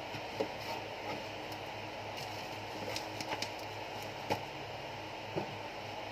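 A few light knocks and rustles from a bubble-wrapped box being set into a cardboard carton and pressed into place, over a steady background hiss and hum.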